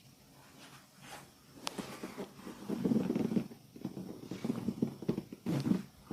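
Hands rubbing and kneading skin and hair in a massage: a low rasping friction in three strokes, with a single sharp click before them.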